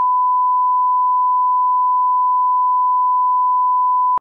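Bars-and-tone reference test tone with SMPTE colour bars: one loud, steady beep held at a single pitch, then cut off abruptly.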